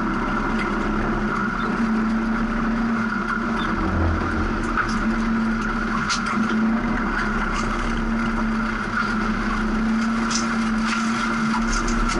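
VR Holden Commodore rally car's engine running at a steady, even note, heard from inside the car, with scattered light clicks and rattles.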